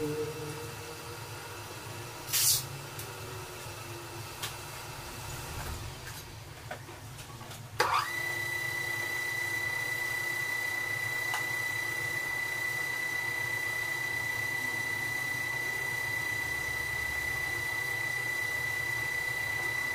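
Metal lathe running steadily, spinning a motorcycle cylinder head while a hand-held tool works at the spark-plug hole in its combustion dome. A short loud scrape comes about two seconds in; after a click near eight seconds a steady high-pitched whine sets in and holds.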